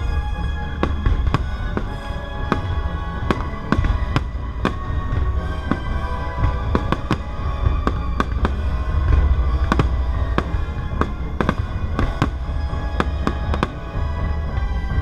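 Fireworks bursting in rapid, irregular succession, many sharp bangs a second, over orchestral music played from the stage.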